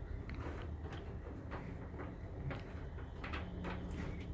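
Faint, scattered metallic clicks and clinks of a tangled chainsaw chain being spread out by hand on a flat surface, over a steady low hum.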